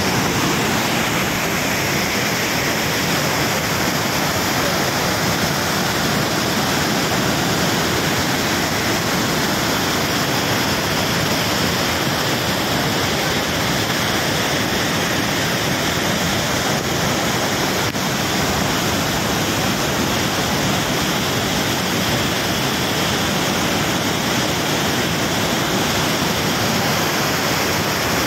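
Rain-swollen waterfall in spate: a torrent of muddy floodwater rushing down a rocky slope in a loud, steady, unbroken rush.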